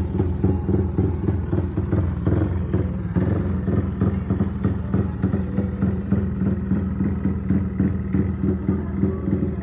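Yamaha Y15ZR (MX King 150) single-cylinder four-stroke engine idling steadily, its exhaust note pulsing evenly.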